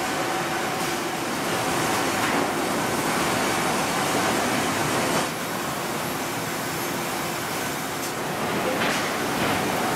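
Sawmill machinery running: lumber carried along powered roller conveyors, a steady, dense mechanical noise with a faint hum and a few brief knocks. It drops a little in level about five seconds in.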